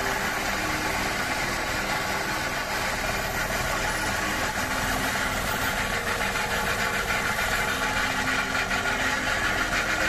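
Engine of working machinery running steadily with an even mechanical noise and no changes in speed.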